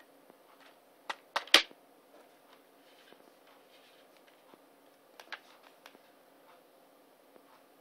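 Plastic clicks and snaps from a multi-disc DVD case as its hinged disc tray is flipped over. Three sharp clicks come about a second and a half in, the last the loudest, and a few softer ones follow around five seconds in.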